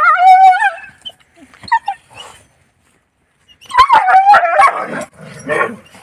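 Village dogs scuffling: one long wavering whine or yelp at the start, then about four seconds in a loud burst of sharp yelps and cries followed by lower snarling.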